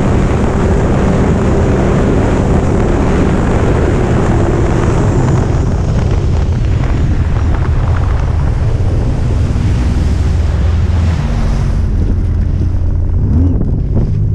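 Sea-Doo RXT-X personal watercraft running across the water, its supercharged three-cylinder Rotax engine a steady low drone under wind buffeting the microphone and water rushing past the hull. The high hiss of wind and spray thins out about twelve seconds in.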